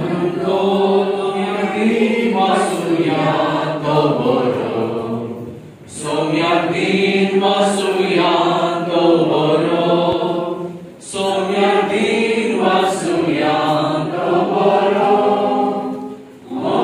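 A group of people singing a Konkani hymn without accompaniment, in three long phrases with short pauses for breath between them.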